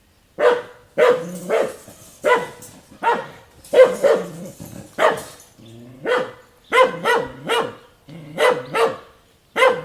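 A dog barking repeatedly, about fifteen sharp barks in short runs of one to three with brief pauses between.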